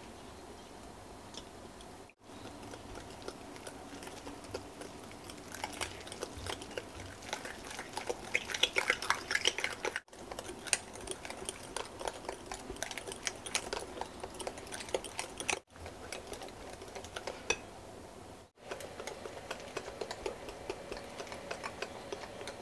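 Wire whisk beating pancake batter in a glass mixing bowl: a fast, uneven run of light clicks and scrapes against the glass, loudest around the middle, cutting off abruptly for an instant a few times.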